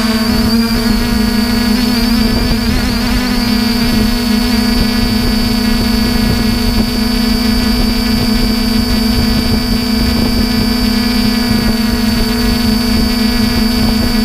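Quadcopter drone's motors and propellers running in flight, heard from the drone's own onboard camera: a loud, steady hum with a thin high whine that wavers briefly about two seconds in.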